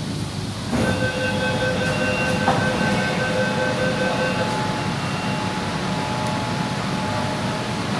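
Metro train car standing at a platform: a repeating electronic beep sounds for about four seconds as the doors open, over the steady hum and rumble of the car.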